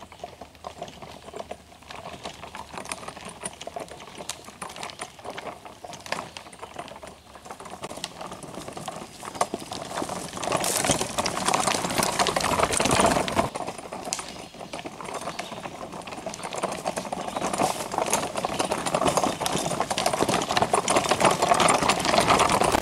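A loaded Cabela's folding wagon on its big plastic all-terrain wheels, rattling and clattering as it is pulled over a rough dirt trail. It makes a dense stream of knocks that gets louder about halfway through.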